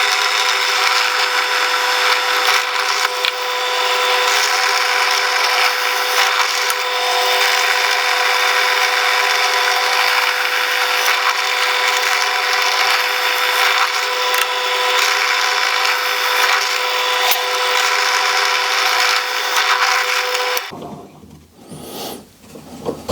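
An old electric drilling machine runs steadily with a constant motor tone, boring holes through a wooden strip. It switches off about 20 seconds in.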